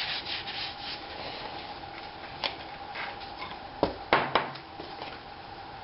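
Tools and parts being handled during an axle seal job. Rubbing and scraping at first, then a few sharp clicks and knocks, the loudest coming close together about four seconds in.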